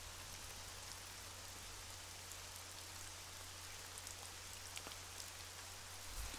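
Faint underwater ambience: a steady crackling hiss with scattered faint clicks over a low steady hum.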